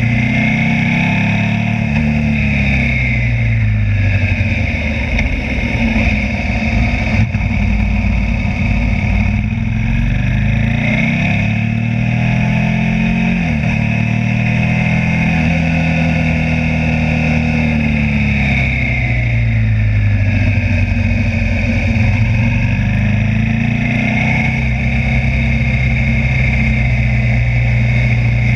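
Motorcycle engine under way, its revs falling and climbing again several times as it rides through bends, with wind noise over it.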